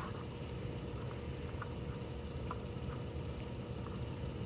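Paracord handled while tying a knot: a few faint, light ticks of cord and fingers, over a steady low room hum.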